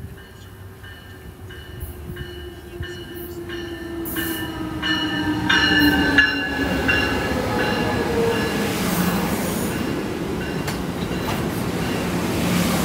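An Amtrak passenger train led by a Siemens Charger SC-44 diesel-electric locomotive comes past the platform. The locomotive grows louder as it closes in, its engine tone falling in pitch, while a high ringing repeats about twice a second. From about halfway the coaches roll past with a steady rumble of wheels on rail.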